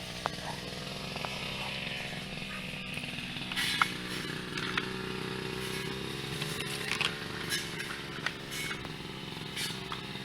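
A toy bulldozer's motor running steadily, its pitch drifting slowly, with scattered clicks and knocks; the loudest knock comes about four seconds in.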